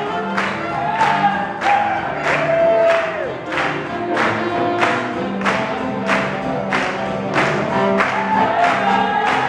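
Live swing band playing an up-tempo tune with singing, on a steady beat about two a second, with the crowd around the dancers clapping and cheering.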